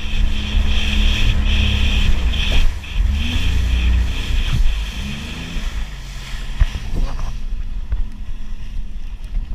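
Sea-Doo personal watercraft engine running under way, its pitch rising and falling a few times as the throttle is worked, with heavy low rumble and a higher whine. About three-quarters of the way through it eases off and runs quieter, with wind buffeting the microphone.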